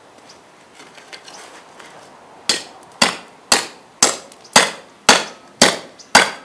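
A khukuri chopping into hard wood: sharp, evenly spaced chops begin about two and a half seconds in and come about twice a second, eight strikes in all. The blade is biting and cutting into the wood rather than smashing it.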